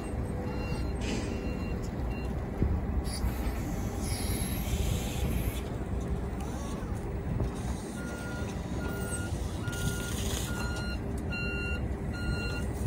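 Forklift reversing alarms beeping about twice a second over machine running noise, with a second, higher-pitched beeper joining about eight seconds in. A hiss sounds for a couple of seconds a few seconds in.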